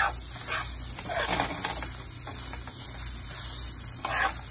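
Slotted metal spoon stirring browned ground beef in a nonstick frying pan, scraping the pan in several strokes, over the steady hiss of the meat sizzling.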